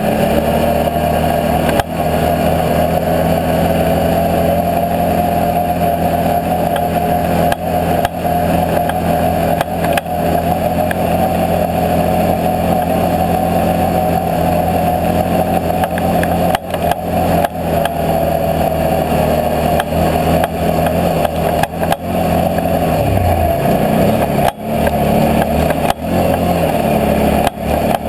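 Can-Am Outlander 650 XMR ATV's V-twin engine running steadily under way, with a whine over the engine note. Engine speed drops and picks up again about three-quarters of the way through.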